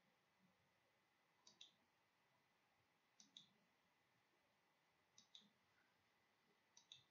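Near silence broken by four faint double clicks, evenly spaced about two seconds apart.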